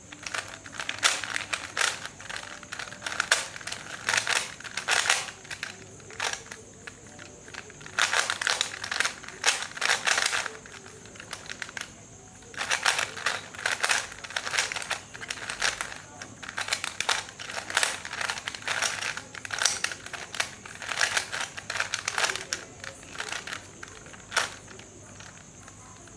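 A 3x3 Rubik's cube being turned rapidly by hand as it is solved: quick runs of plastic clicking and clacking as the layers turn, broken by short pauses.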